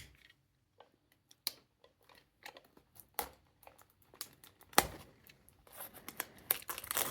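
Pokémon card booster box packaging being handled: scattered light clicks and crinkles of cardboard and plastic. The strongest click comes about five seconds in, followed by a denser patch of rustling near the end.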